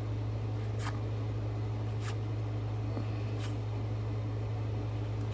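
Steady low hum of room background noise, with four faint, brief rustles spread through it.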